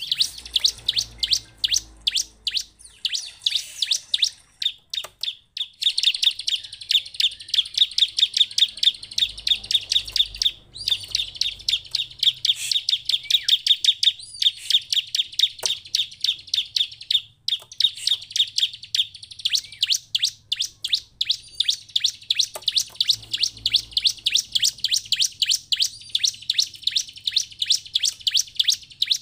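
Bar-winged prinia (ciblek) calling: long, fast runs of high chirps, several a second, broken by short pauses about a third and about two-thirds of the way through.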